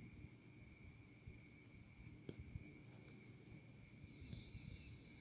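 Near silence: faint room tone with a steady high-pitched whine, a single faint click about two seconds in, and a soft hiss near the end.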